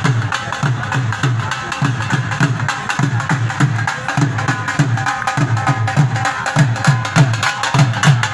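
Dhol drums beating a fast, steady rhythm: low booming strokes about two to three a second, with sharp stick clicks between them.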